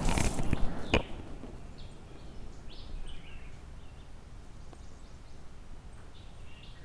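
The fading echo of a .30-06 rifle shot and a sharp click about a second in. After that, quiet outdoor ambience with a few short bird chirps.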